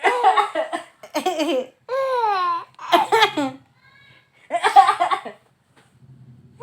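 A baby laughing in five short, high-pitched bursts, each about half a second long, set off by his mother's coughing.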